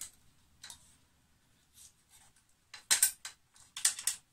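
Speargun reel clicking as the nylon shooting line is pulled taut: a few faint clicks, then quick runs of sharp ratchet-like clicks about three seconds in and again near the end.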